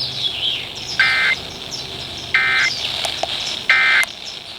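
Emergency Alert System end-of-message (EOM) code coming through a radio: three short, buzzy digital data bursts, about a second apart, the signal that closes the alert test.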